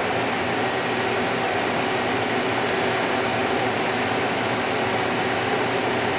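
Steady whirring hiss of an ESAB 875 plasma cutter's cooling fan running between cuts, with faint steady tones and no arc.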